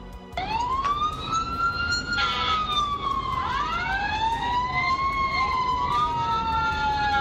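Emergency-vehicle sirens wailing, several overlapping at once, each pitch rising and falling slowly. They start suddenly about half a second in.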